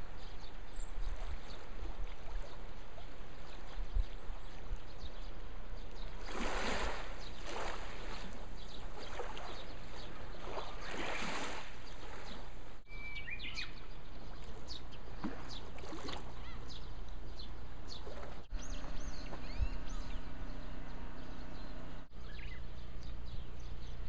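Outdoor seaside ambience: a steady low rumble with two swells of rushing noise near the middle, and short bird calls chirping through the second half. The background breaks off briefly three times and changes each time.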